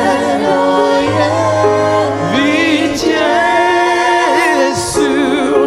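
A gospel worship song sung live: voices singing with a wavering vibrato over band accompaniment with a sustained bass line.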